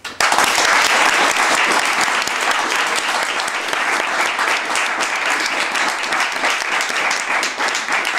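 Audience applauding, breaking out suddenly and keeping up a steady clapping.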